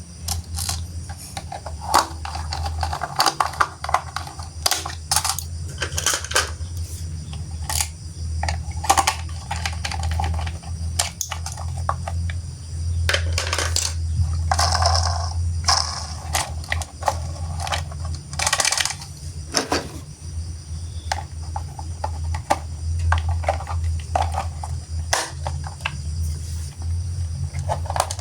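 Irregular clicks and clatter of small hard plastic toy pieces being handled, over a steady low hum.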